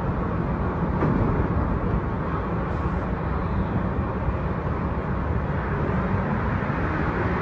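Subway train at a station platform: a steady, even low noise from the train with no distinct events.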